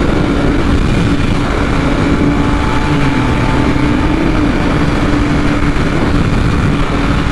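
Wind rushing through the helmet over a BMW S1000RR's inline-four engine running steadily at cruising speed, its note holding one pitch.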